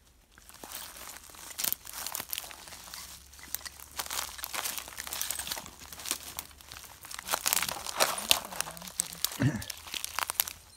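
Irregular rustling, crackling and crinkling of plastic litter, dry twigs and dead leaves as the debris is searched through by hand; the crackling is busiest towards the end.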